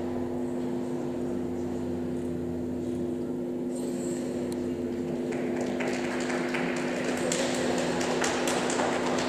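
A steady low hum in an ice-rink hall. From about five seconds in, scattered sharp claps or taps come more and more often, like a few spectators clapping as the skater takes her starting position.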